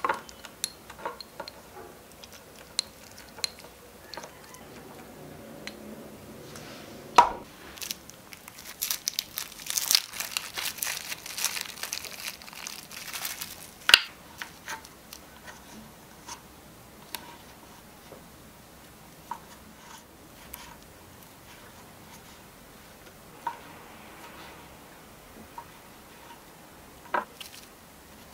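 Small-scale food prep: a tiny wooden spoon tapping and scraping in a small glass bowl, then several seconds of plastic packaging crinkling and tearing around a punnet of mushrooms. After that, sparse single taps of a small knife on a tiny wooden cutting board as brown beech mushrooms are sliced.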